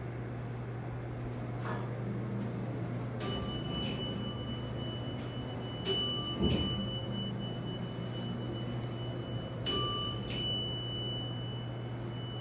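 Elevator chime dinging three times, each a bright bell-like tone that rings on and fades, the third the loudest, over a steady low hum.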